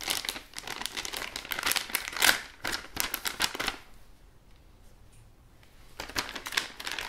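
Metallised anti-static plastic bag crinkling as it is pulled open and handled, a rapid run of crackles for about four seconds, a near-quiet pause of about two seconds, then a few more crinkles near the end.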